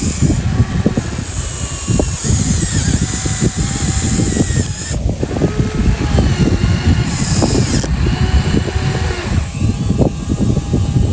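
Radio-controlled model excavator working: small electric motors whine, rising and falling in pitch, over a dense clatter of knocks and scraping. Bursts of high hiss switch on and off several times.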